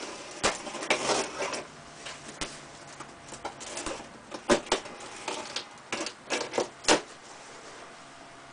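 Box cutter slitting the packing tape along a cardboard box's seam: scraping and irregular sharp crackles of tape and cardboard. Near the end the cardboard flaps are pulled apart.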